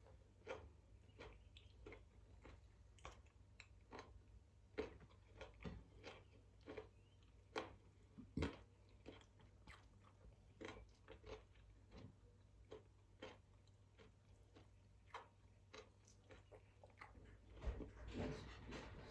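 A person chewing food up close to the microphone: faint, irregular mouth clicks and smacks, several a second, with a louder patch of sounds near the end.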